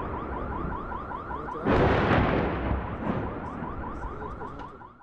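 A car alarm sounds a rapid run of rising chirps, about five a second. A heavy explosion from shelling breaks in about two seconds in and is the loudest sound, and a smaller blast follows about a second later.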